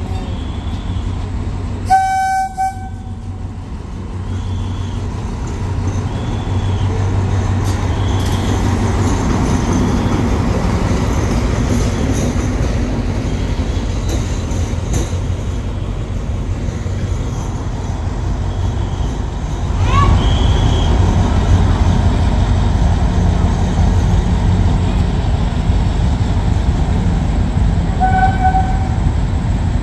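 Diesel train horn sounding a short blast about two seconds in and again near the end, over the steady low rumble of a diesel train's engine. The rumble grows louder about two-thirds of the way through.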